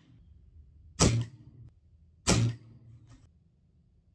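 Two shots from a .22 Weihrauch HW98 break-barrel spring-piston air rifle, about a second and a quarter apart. Each is a sharp crack followed by a short, low ring from the spring and piston.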